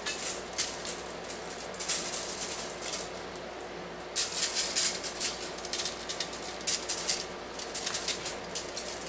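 Spice shaker of Cajun seasoning shaken in repeated bursts, a rapid rattling of the powder and granules.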